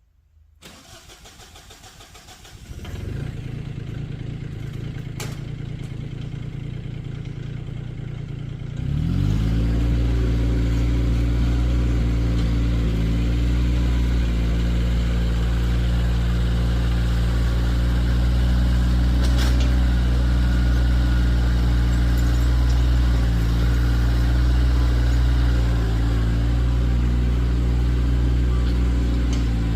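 Kioti tractor's diesel engine starting from silence and idling. About a third of the way through it is throttled up and runs steadily at a higher, louder speed.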